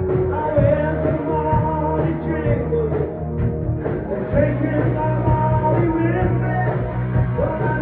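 Live rock band playing: a male singer over distorted electric guitar, bass and drums.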